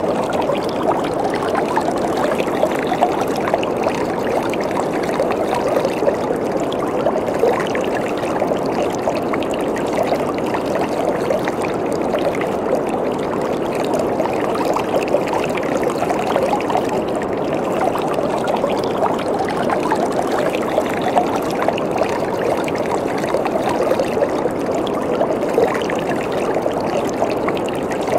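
Waterfall: water falling and splashing steadily, a continuous dense rush with fine splashing detail.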